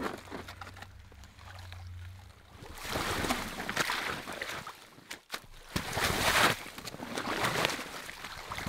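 Water sloshing and ice scraping as a cut block of lake ice is hauled up out of the hole with a hand tool. The noise comes in two rough surges, about three seconds in and again about six seconds in.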